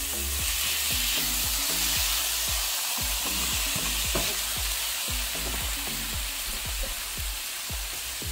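Diced tomatoes sizzling as they drop into a hot nonstick pan of sautéed mushrooms and onions, with a silicone spatula stirring and scraping them around the pan. The sizzle is steady, a little stronger in the first couple of seconds.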